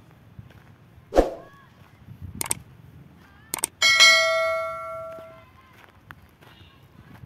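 Subscribe-button animation sound effects: a short pop, then a few quick mouse clicks, then a bell ding about four seconds in that rings on for about a second and a half.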